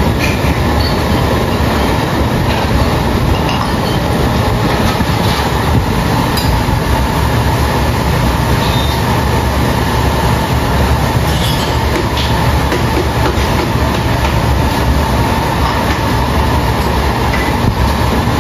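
Gas burners under claypots of simmering soup burning with a loud, steady rushing noise, with a few faint clinks of utensils.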